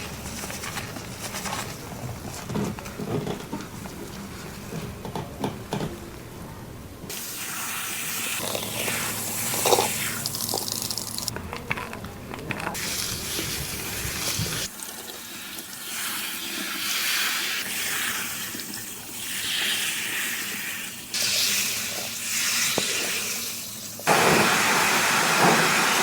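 Water spraying from a salon shower head and running through hair during a hair wash, starting about seven seconds in, breaking off and starting again several times, and loudest and steadiest near the end. Before it, faint crackling and rubbing.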